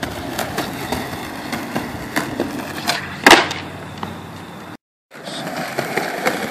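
Skateboard wheels rolling over a cracked concrete sidewalk, with repeated clacks of the board on the pavement and one loud board slap about three seconds in. A brief break near the end.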